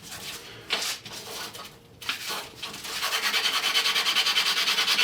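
Bicycle disc brake pad rubbed back and forth on coarse 50-grit sandpaper laid flat on glass: a fast, even scraping that starts a little over halfway in, after a couple of light knocks as it is set down. The sanding takes off the pad's glazed, oil-darkened surface.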